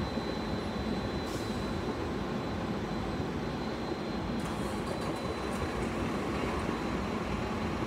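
Steady low rumble of an idling vehicle heard from inside a car cabin, with a faint steady high whine over it.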